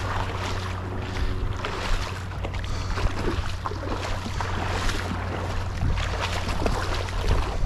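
Wind buffeting the microphone as a steady low rumble, over the hiss and splash of small waves lapping in shallow surf.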